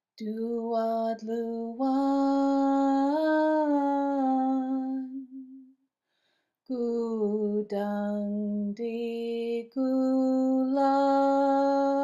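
Unaccompanied solo voice singing a slow song in Haida, with long held notes in two phrases and a short pause about six seconds in.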